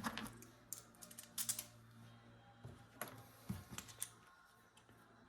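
Scattered light clicks and taps of small metal hardware being handled, including ball bearings and washers, over a steady low hum.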